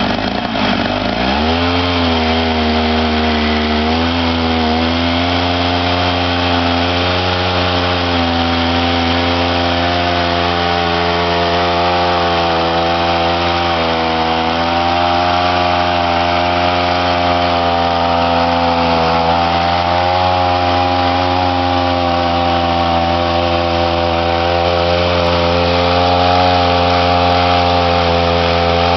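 Two-stroke petrol chainsaw engine of a chainsaw sawmill, revving up in the first second or two and then running at a high, nearly steady pitch with slight wavering, as it rips along a log.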